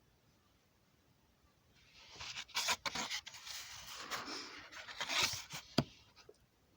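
Rustling and scraping with a few sharp clicks, starting about two seconds in and lasting about four seconds.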